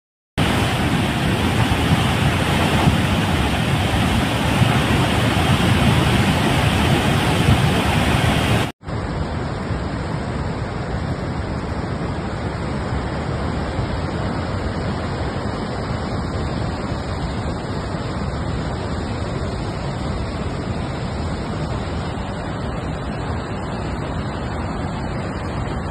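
Flooded mountain river in spate: a loud, steady rush of fast, silt-laden water. About nine seconds in, after a brief cut, it gives way to a steadier, slightly quieter rushing noise of flood water heard from farther off.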